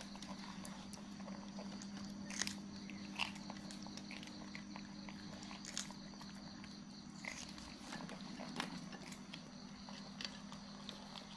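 Monkeys snapping and chewing raw green beans: scattered crisp snaps and crunches, the loudest two a few seconds in, over a steady low hum.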